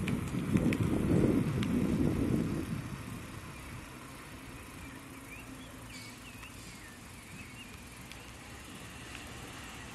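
Low rumbling noise that fades out about three seconds in, leaving quiet outdoor ambience with a bird chirping a few times midway.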